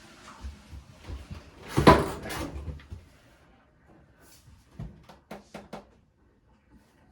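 Handling noises from work on a front-loading washing machine's door area: a loud scraping rustle about two seconds in, then a few light clicks and knocks.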